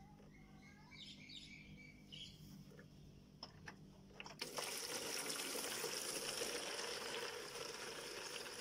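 Old radiator coolant running out of the drain under a Nissan NV and splashing into a plastic basin. It starts about four seconds in and then pours steadily. Before it come a few faint bird chirps.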